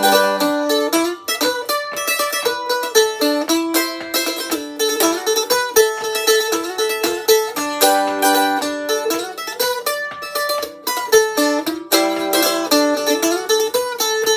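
Fender mandolin with new strings being picked: a quick instrumental melody of many rapid plucked notes, with no singing.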